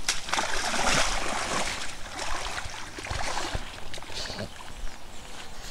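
Lake water splashing and sloshing as a wading angler swishes and dips a fishing mat through the shallows. The splashing is heaviest in the first two seconds, then eases to quieter sloshing with a few separate splashes.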